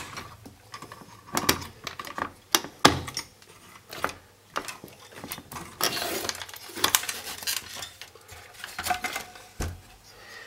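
Handling noise from a CRT television's chassis circuit board and wiring being moved: scattered sharp clicks, knocks and light clinks, with a short rubbing noise about six seconds in.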